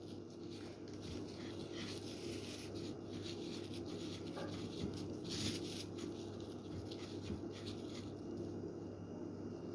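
Soft, irregular rustling and scraping of a plastic-gloved hand rolling potato pieces in breadcrumbs on a plate, over a steady low hum.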